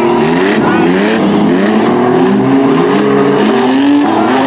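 Several demolition derby truck engines revving hard at once, their pitch climbing in repeated rising sweeps over a loud rumble.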